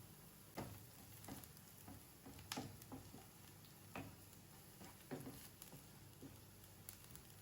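Faint, irregular clicks and taps of a cooking utensil working in a pan or bowl while food is prepared, about a dozen light knocks over several seconds.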